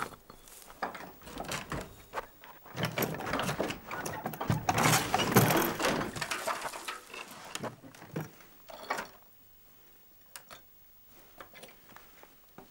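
A person moving about: footsteps with rustling and scraping, loudest for a few seconds in the middle, then a few scattered light steps.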